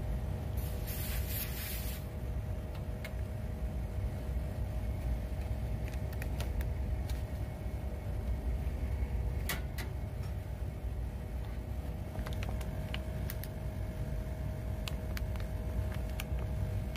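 Split air-conditioner outdoor unit running with its Mitsubishi rotary compressor on a fresh R22 charge: a steady low hum with a steady tone. A short hiss comes about a second in, and a few light clicks and taps from work at the service valves follow.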